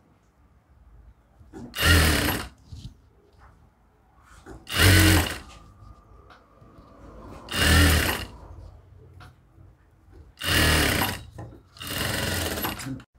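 Jack industrial sewing machine stitching in five short runs of about a second each, stopping between runs while the fabric is repositioned; the last two runs come close together.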